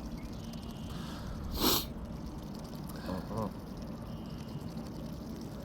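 A goose hisses once, a short sharp breathy burst about a second and a half in, followed a little later by two short soft calls.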